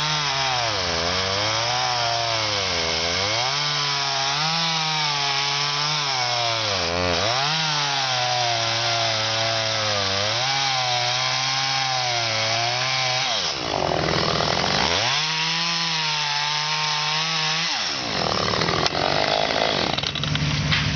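Top-handle climbing chainsaw cutting the face notch into a pine trunk, its pitch dipping and recovering again and again as the chain bogs in the wood. The cut breaks off about two-thirds of the way through, the saw cuts again for a few seconds, then stops near the end.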